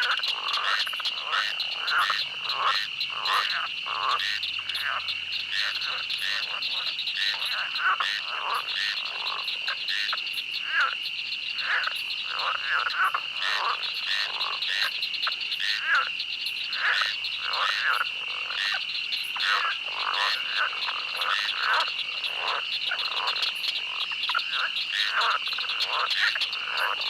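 A dense swamp chorus of many frogs croaking in short, overlapping calls, several a second, over a steady high-pitched insect drone.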